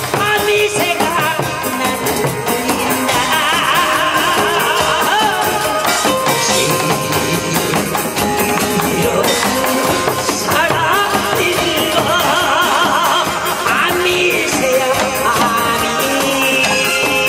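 Pumba singing: a male singer's voice with a wide vibrato, amplified through a microphone and PA, over traditional Korean percussion (janggu hourglass drum, buk barrel drum and cymbal) keeping a steady beat.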